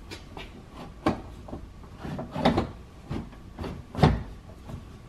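Irregular knocks and clicks as the window glass and its regulator clamp are shifted by hand inside a car door, with the sharpest knock about four seconds in.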